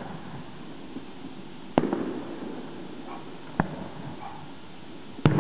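Amateur fireworks going off: three sharp bangs a little under two seconds apart, the middle one weaker and the last the loudest.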